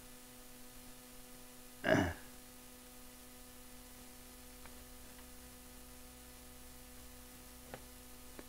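Steady electrical mains hum, with one short louder sound about two seconds in and a faint tick near the end.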